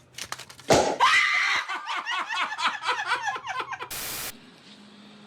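A person laughing hard in a fast run of repeated 'ha' sounds, starting right after a sudden loud knock about a second in. The laughter is cut off by a short burst of hiss.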